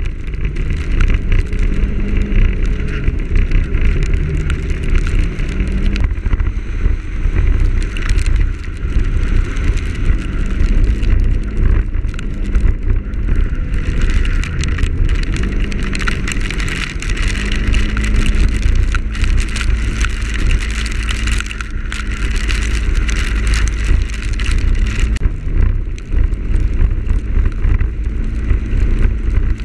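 Wind buffeting the microphone of a motorcycle-mounted camera while riding on a wet road, with the motorcycle engine's steady note running underneath.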